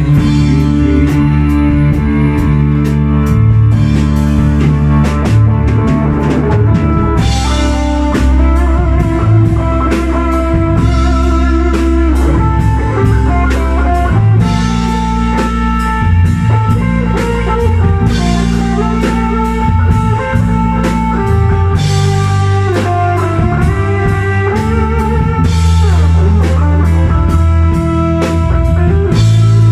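Live band playing an instrumental rock passage: a Les Paul-style electric guitar carrying the melody over electric bass and a drum kit with cymbal crashes, with no singing.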